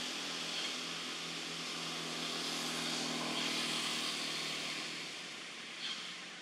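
Steady outdoor hiss with a distant engine hum underneath that fades out about five seconds in, and one short high chirp near the end.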